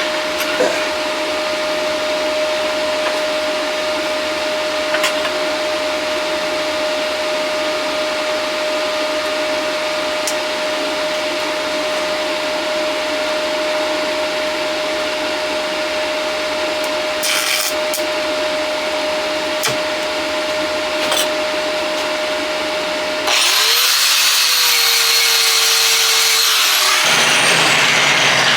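Stick-welding arc with a 6010 rod burning on steel: a steady hiss and crackle with a constant hum tone and scattered clicks. About 23 seconds in, a louder power tool starts suddenly, with a high whine that slowly falls.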